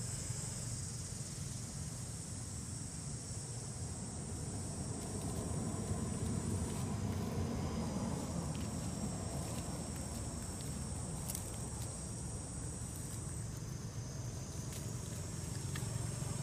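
Insects buzzing in a steady high-pitched chorus that falls away twice, about seven seconds in and again near the end, returning each time, over a low rumble.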